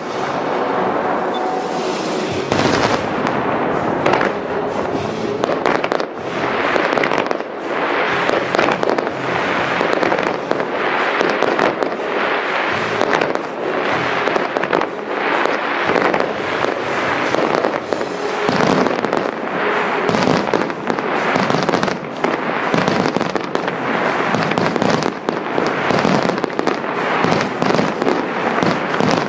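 Aerial firework shells bursting in rapid succession, a near-continuous barrage of bangs and booms.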